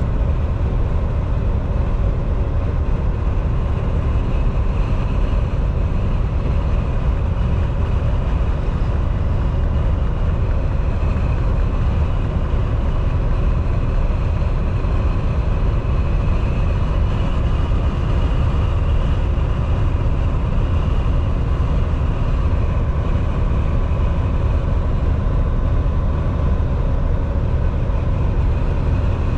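Volvo semi-truck at highway cruising speed heard from inside the cab: a steady, deep drone of engine and road noise that does not change.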